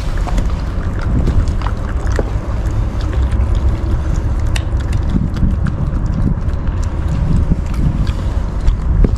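Puppies chewing and crunching food scraps off a concrete floor, scattered small clicks and snaps, over a steady low rumble.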